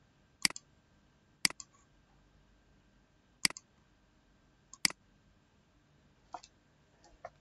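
Computer mouse button clicking four times at uneven gaps of one to two seconds, each a sharp click followed closely by a smaller tick, then two fainter clicks near the end.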